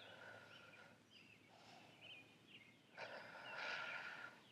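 Quiet outdoor ambience with faint, short bird chirps repeating every second or so. A soft rushing sound swells in about three seconds in.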